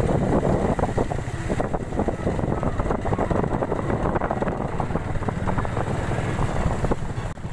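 Motorcycle running along a rough, potholed road, with wind noise on the microphone.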